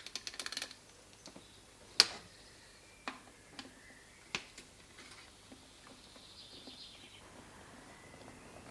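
A quick rattle of small clicks, then a sharp click about two seconds in and a few lighter clicks and taps: small parts being handled on a Stromberg carburettor with the engine switched off.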